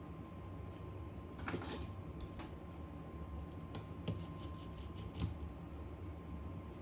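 Scattered light clicks and taps of small repair tools handling a smartphone's parts, about half a dozen irregular ones, over a steady hum.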